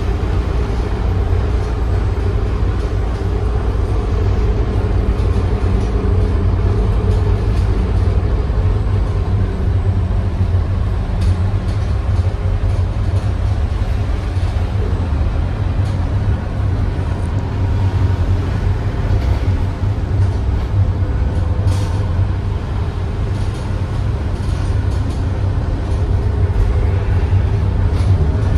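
Cabin noise of a transit bus driving at speed: a steady low drone of engine and road noise, with a few brief clicks.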